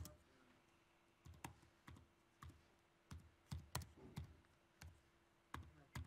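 Faint, irregular clicks of typing on a laptop keyboard, about a dozen taps, some in quick pairs.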